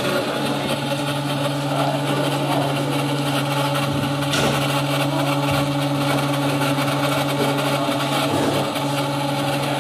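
CNC milling machine running with a steady, even hum and a hissing cutting noise over it, with one short click about four and a half seconds in.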